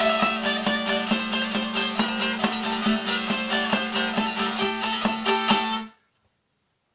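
Long-necked wooden plucked lute played solo: a fast-picked melody over a steady low drone. The playing stops abruptly about six seconds in.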